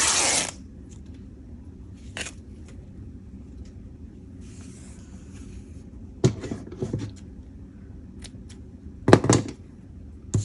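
Chiffon fabric strip torn by hand in one short rip, followed by scattered clicks and snips of scissors and small knocks of craft materials being handled.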